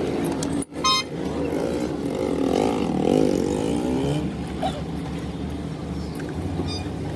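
Car engine idling steadily, a low even hum. A sharp click about a second in.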